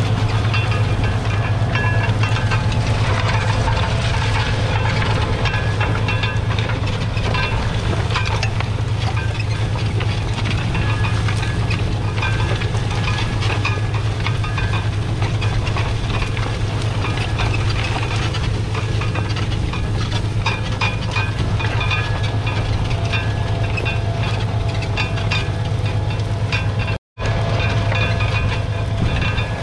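Fendt 936 Vario's 9.0-litre six-cylinder diesel running steadily under load, pulling an Amazone Cayros reversible plough, with the hiss and clatter of the plough bodies cutting through the soil over the low engine hum. The sound drops out for a split second near the end.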